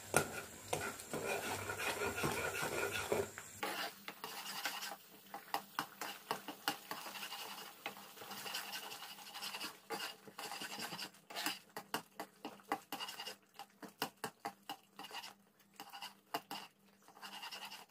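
A spatula stirring and scraping a thick mixture of rice flour and boiling water in a pan, a long run of short, irregular scraping strokes.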